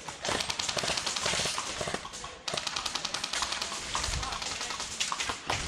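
Airsoft gun firing rapid full-auto bursts: two long strings of fast clicking shots, with a short break about two and a half seconds in.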